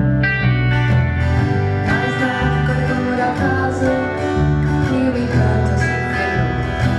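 A live band playing, with guitar to the fore over a low bass line that changes note about once a second.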